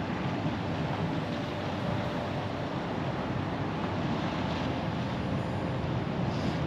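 Steady low rushing of sea swell washing over a rocky shore, an even noise without breaks.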